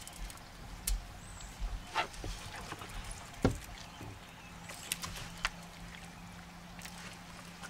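Sounds on a fishing boat during a fight with a striper: occasional sharp knocks and clicks, the loudest about three and a half seconds in, over a low rumble, with a faint steady hum coming in about halfway through.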